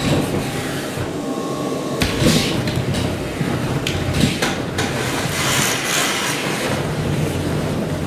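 Industrial textile vacuum cleaner running with a steady hum while its metal suction tube draws in loose textile fibres. Rushing swells of hiss come as the nozzle plunges into the pile, the strongest about two seconds in and again around five to six seconds in, with a few short knocks in between.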